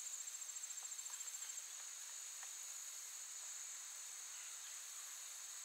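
Faint, high-pitched insect trill: rapid pulsing for about the first second and a half, then a steady even buzz, with a few faint ticks.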